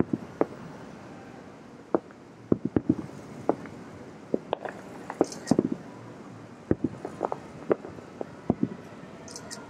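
Distant aerial fireworks shells bursting about two miles away: an irregular series of about twenty sharp booms, sometimes several in quick succession, over a steady background hum.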